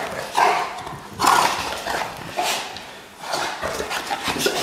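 Bullmastiff growling and grumbling in rough play, a string of short bursts with brief gaps between them.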